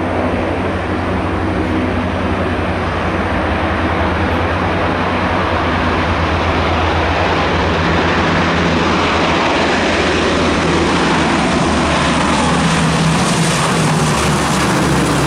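Lockheed C-130 Hercules at takeoff power: its four turboprop engines and propellers make a loud, steady drone with a deep low hum beneath it as it rolls down the runway and lifts off.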